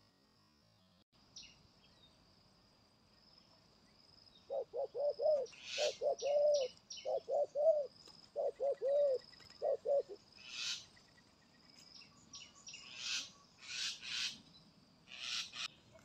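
Spotted dove cooing: a run of low, arched coos in short groups, lasting about five seconds from a few seconds in. Over it runs a thin, steady high tone, and other birds give sharp chirps near the end.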